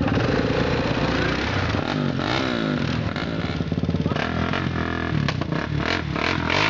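ATV (quad bike) engine revving up and down repeatedly as the quad churns through deep mud, its pitch rising and falling several times.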